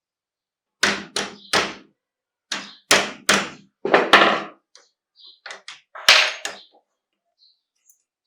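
A run of about ten sharp knocks and taps, unevenly spaced in small groups, each dying away quickly, from metal work on the bench.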